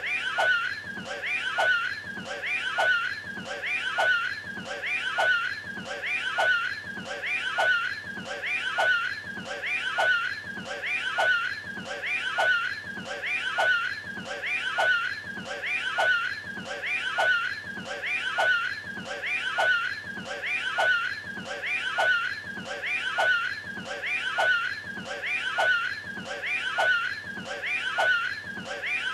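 The Cat in the Hat's strained vocal hairball noise, cut into a short loop that repeats evenly, about four times every three seconds.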